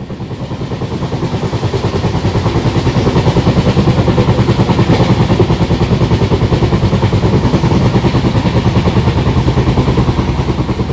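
Diesel locomotive engine running hard with a rapid, even throb of about eight beats a second. It swells in over the first few seconds and fades away near the end.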